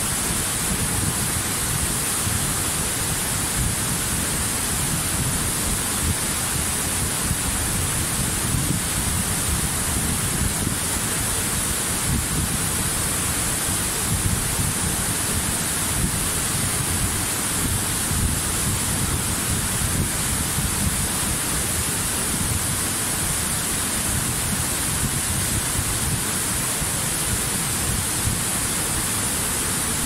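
Waterfall cascading down a steep rock face: a steady, unbroken rush of falling water.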